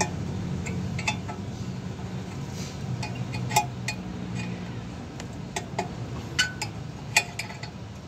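Pliers clicking and clinking against a metal hose clamp as it is worked loose from a truck's exhaust brake hose: scattered sharp metal clicks, a few louder ones past the middle, over a low steady hum.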